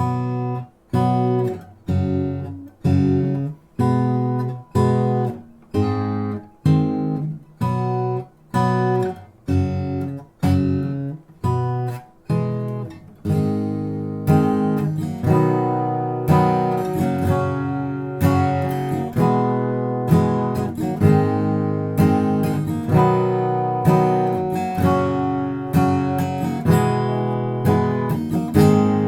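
Background music: strummed acoustic guitar, sharp separate strums about twice a second at first, then a fuller, continuous strumming pattern from about 13 seconds in.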